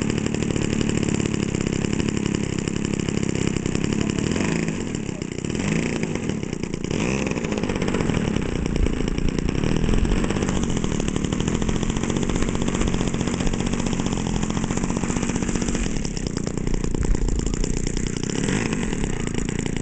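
Radio-controlled Pilatus PC-6 Porter model's engine running at low throttle as the model taxis, its note rising and falling a little a few times with the throttle.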